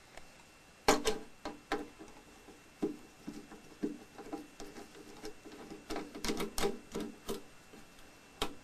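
Scattered clicks, taps and light rattles from the housing of a Telefunken TC 400 cassette deck being handled and opened up. There is a sharp knock about a second in, a busy run of clicks around six to seven seconds, and another knock near the end.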